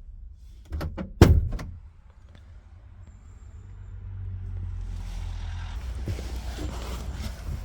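Clicks, then a heavy thump about a second in, typical of a Citroën Jumper van's door being shut and latching. A low steady rumble follows.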